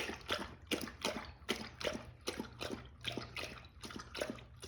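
Dog lapping and slurping kibble soaked in water from her bowl: a steady run of wet, smacking laps, about four a second. It sounds like a monster eating.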